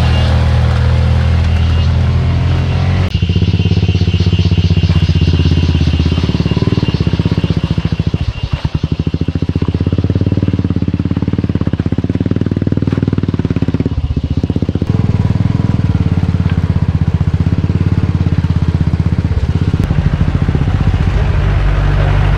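Motorcycle engine pulling hard up a rough off-road climb, its note dipping and stepping up several times as the throttle and gears change.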